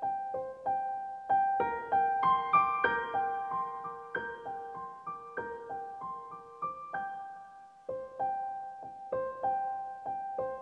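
Soft background piano music: single notes and chords, several a second, each fading after it is struck.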